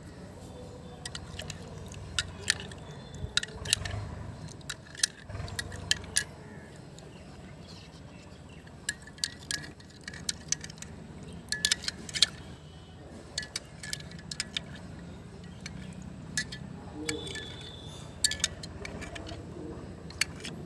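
Cooking utensils clinking against a pan: scattered sharp clinks, several in quick clusters, over a low steady hum.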